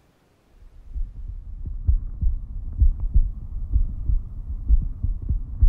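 A deep, muffled rumble with a pulse of low thumps, about two a second and slightly uneven, fading in about half a second in.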